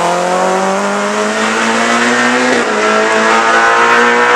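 Ford Escort RS Cosworth rally car accelerating hard, engine pitch climbing steadily. A quick upshift comes about two and a half seconds in, and the engine climbs again.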